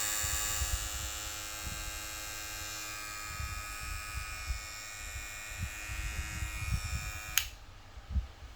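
KIEPE Power Up cordless hair clipper, with its motor sold as brushless, running with a steady high-pitched buzz and hum. It is switched off suddenly near the end, followed by a few soft handling bumps.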